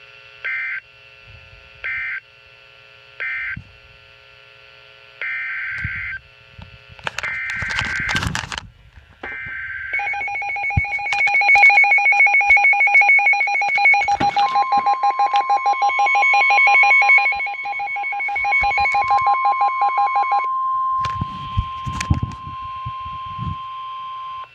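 Emergency Alert System signalling tones. It opens with a series of short data bursts, then a rapidly pulsing two-pitched alarm tone sounds for about ten seconds. About halfway through, a steady single-pitched warning tone joins in and holds to the end, with some static and low thumps near the end.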